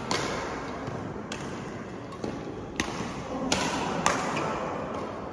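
Badminton rackets striking a shuttlecock during a rally: about seven sharp cracks at irregular spacing of half a second to a second, over a low background hum of the hall.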